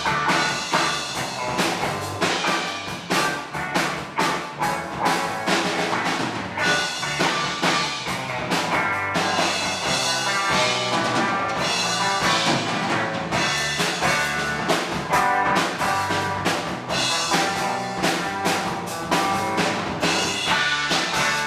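Live rock band playing a hard-rock song: drum kit with steady kick and snare hits under electric guitar and bass.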